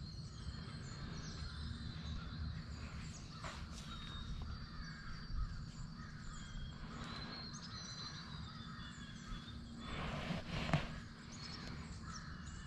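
Quiet woodland ambience with scattered bird calls. A few brief rustles and light knocks come from movement in the tree stand, the loudest a little over ten seconds in.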